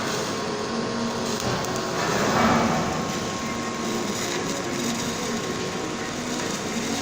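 Electric welding arc crackling steadily and continuously.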